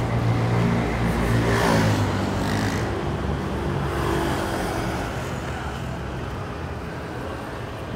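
A motor vehicle passing close by in street traffic, its engine note sliding down as it goes past about two seconds in, then fading away.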